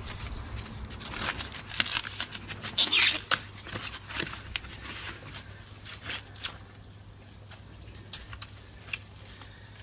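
Packaging wrap being pulled and torn off a new bike: crinkling and rustling with sharp rips, loudest about three seconds in, thinning to a few scattered crackles after about seven seconds.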